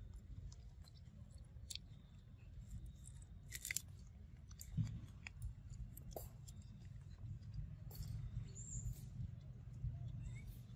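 A macaque chewing mouthfuls of sweet corn kernels: scattered soft crunching clicks over a steady low rumble.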